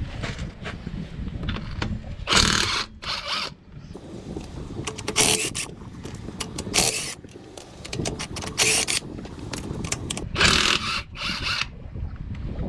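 Hand tools working on a car: about seven short spells of ratchet-like clicking, some in quick pairs, over a low wind rumble on the microphone.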